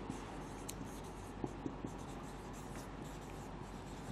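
Marker pen writing faintly on a whiteboard, its tip scratching across the board, with a few small ticks about one and a half seconds in.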